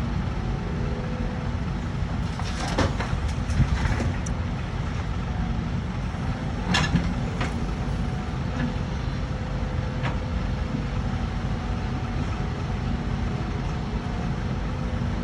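Excavator's diesel engine running steadily, with a few sharp knocks from the working machine: a cluster about three seconds in and another near seven seconds.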